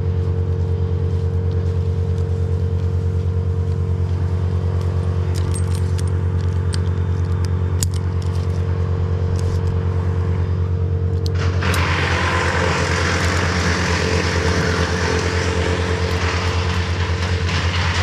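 An engine running steadily at one constant speed throughout. About eleven and a half seconds in, a loud rushing hiss joins it and carries on.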